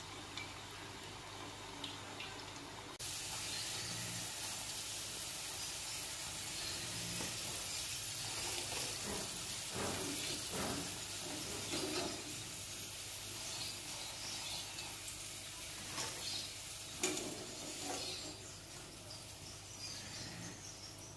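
Cassava pieces deep-frying in hot oil, a steady sizzle that steps up suddenly about three seconds in. A wire skimmer knocks and scrapes against the stainless steel pan now and then as the pieces are stirred and lifted out.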